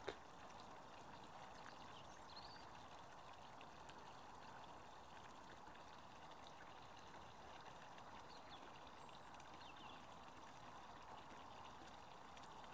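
Near silence: a faint steady background hiss, with a few faint short high chirps.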